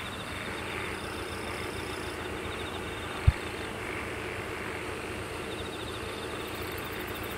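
Outdoor background noise with a faint steady hum and insects trilling high and fast, fading out and back in. One dull low thump a little over three seconds in is the loudest sound.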